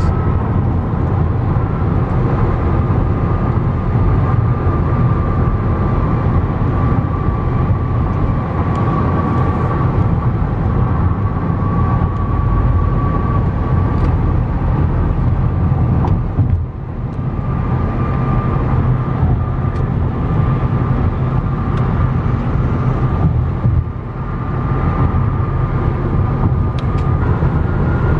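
Car driving at highway speed, heard from inside the cabin: a steady low rumble of road and engine noise with a faint steady whine above it. The noise briefly dips twice, at about 17 and 24 seconds.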